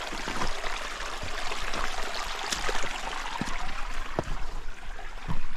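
Water of a small spring-fed desert creek running and trickling over rocks close by, a steady rushing with scattered small clicks.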